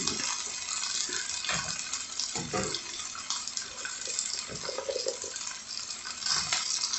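Vegetables sizzling in hot olive oil in a frying pan: a steady hiss throughout.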